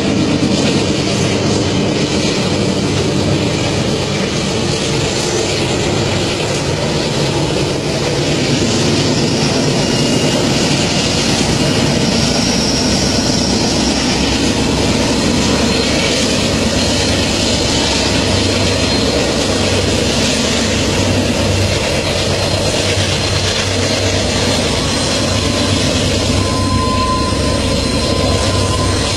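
Long train running on its rails: steady, loud, continuous wheel and wagon noise with no break.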